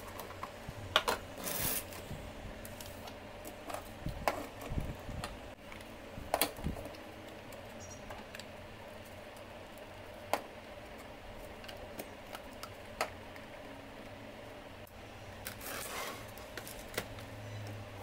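Scattered clicks and knocks of hard plastic parts being handled and fitted together: a plastic motor housing and PVC pipe fittings set against a clear plastic tub.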